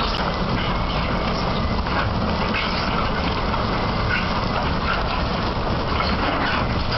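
O&K bucket-wheel excavator 258 at work: a steady, dense mechanical din with scattered short, high squeaks.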